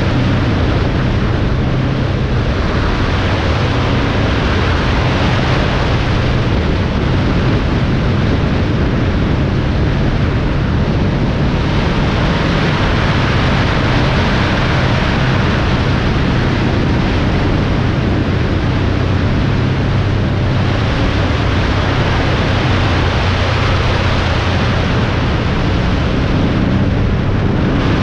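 Steady wind and road noise of a vehicle travelling at highway speed, with a low engine hum underneath; the hiss swells and eases a few times.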